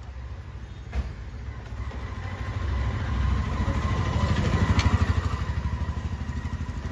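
A motor vehicle's engine running, swelling to its loudest about five seconds in and then easing off, with a single sharp click about a second in.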